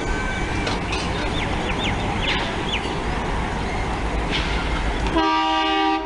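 WDM-3A diesel-electric locomotive, with its 16-cylinder ALCO 251 engine, running under load with a steady low chugging rumble. About five seconds in its horn starts: a loud, steady multi-tone blast that is still sounding at the end.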